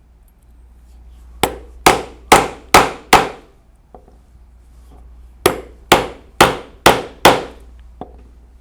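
A rivet setter struck hard to set rapid rivet caps onto their posts through leather: two runs of five sharp blows, about two a second, each with a short ring.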